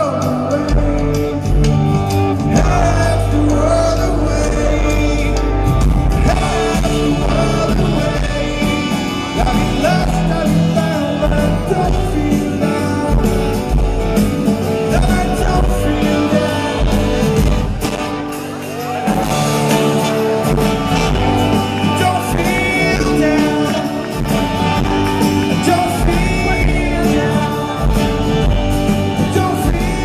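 Live rock band music: a male lead vocalist singing over acoustic guitar and drums, heard from the audience at a large concert.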